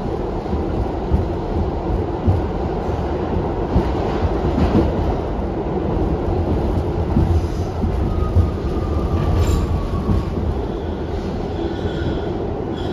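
R62A subway car running on the rails: a steady rumble of wheels and running gear with occasional clacks over the track, and a faint high squeal in the last few seconds.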